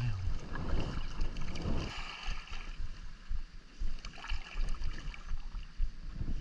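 Water sloshing and lapping around a kayak with paddle strokes, and wind rumbling on the action camera's microphone.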